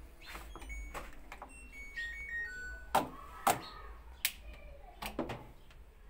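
LG direct-drive washing machine's control panel giving a run of short electronic beep tones, stepping down in pitch like a little jingle about two seconds in. Several sharp clicks follow, the loudest sounds, between about three and five seconds in.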